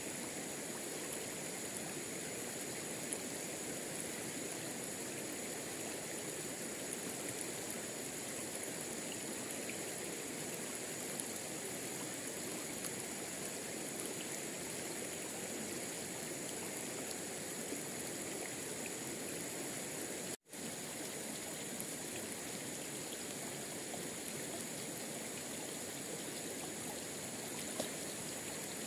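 Steady rushing of a forest stream, with a constant high-pitched whine above it. The sound cuts out for an instant about twenty seconds in.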